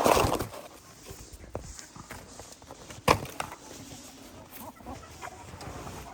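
Chickens clucking, with a loud rustling burst right at the start and a single sharp knock about three seconds in.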